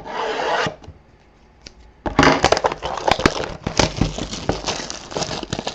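Plastic shrink-wrap being torn and crumpled off a sealed box of trading cards. There is a short tearing rustle at the start, a pause of about a second, then dense crackling and crinkling.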